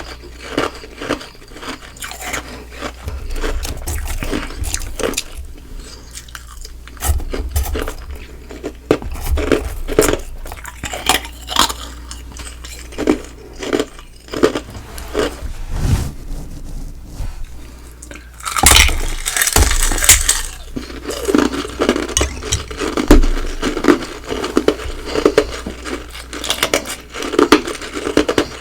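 Close-miked biting and chewing of ice: sharp crunches and a run of small crackles, with a louder, denser stretch of crunching about two-thirds of the way through.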